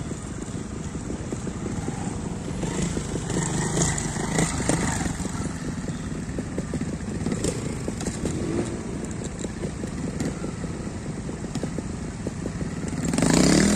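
Trials motorcycle engine running at low revs over a rocky section, with a louder rise and fall in revs near the end.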